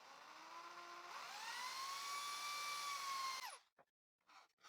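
Power drill with a 5 mm bit drilling a cedar piece: the motor whine rises as it spins up, holds steady, then winds down and stops about three and a half seconds in.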